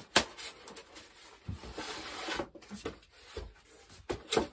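Hands handling a foam packing box and the parts inside it: a sharp knock just after the start, a rustling scrape around the middle, and two more knocks near the end.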